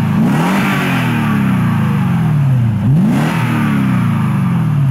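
Lexus LX570's 5.7-litre V8 through its tuned exhaust, revved in neutral while standing: the revs fall slowly from one blip, then a second quick blip about three seconds in rises sharply and dies away slowly.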